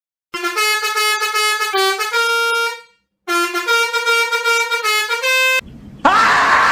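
Telolet bus horn: a multi-tone air horn playing a melody that steps from note to note in two phrases, split by a short gap near the middle. The horn cuts off about a second before the end and gives way to a loud rushing noise.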